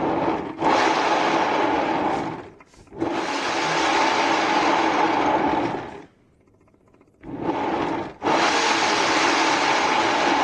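Electric hair dryer blowing in bursts of a few seconds, cut off and started again several times, pushing poured acrylic paint so it spreads and flows across the surface.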